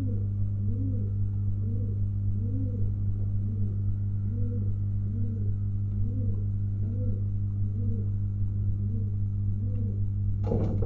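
Domestic pigeon cooing over and over in an even rhythm, each coo a low rise and fall, over a steady electrical hum. A short scuffling burst comes near the end.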